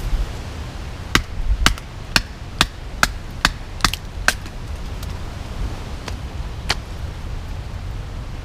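Sharp wooden knocks of a baton striking the spine of a Bark River Bushcrafter knife, driving it through a piece of ironwood to split it. There are about eight strikes at roughly two a second, then one more a couple of seconds later.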